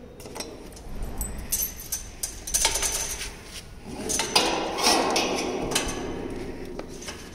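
Stainless steel vacuum tumbler lid and its fittings clanking and clinking as they are handled, a run of sharp metallic knocks and rattles that is busiest and loudest in the middle.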